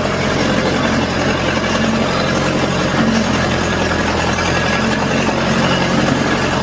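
Old Massey Ferguson backhoe's engine running steadily at a constant speed.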